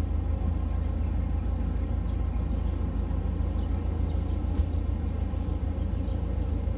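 A narrowboat's diesel engine running steadily at low cruising speed, a low, even engine note.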